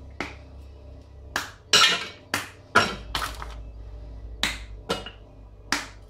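Pieces of dark chocolate dropping into a Thermomix TM5's stainless steel mixing bowl as it is weighed on the machine's scale: about ten sharp, irregular clinks, the loudest near the middle.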